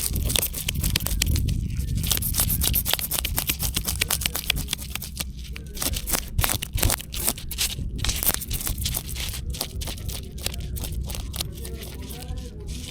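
Fish being cleaned by hand: rapid, irregular scraping and snipping as scales and fins are cut and scraped off with a blade or scissors.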